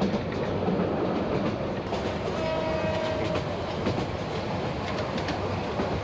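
Passenger train running along the rails, its wheels clattering over a steady rumble. A short steady tone sounds about two seconds in and lasts about a second.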